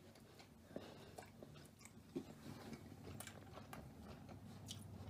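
Faint chewing of a mouthful of stir-fried noodles and chicken, with soft irregular clicks.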